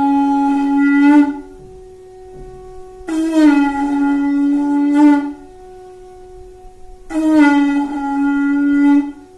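A straight black tube blown like a horn with buzzing lips, as practice for blowing a conch: three long, steady horn-like notes about two seconds each, the first already sounding as it begins and the others starting about three and seven seconds in, each starting a little high and settling to a steady pitch.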